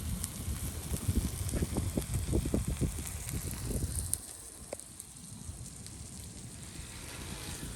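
Food frying in a cast iron skillet, a steady sizzle with crackling pops, over a low rumble of wind on the microphone. The crackling and rumble are strongest in the first four seconds, then ease to a quieter sizzle.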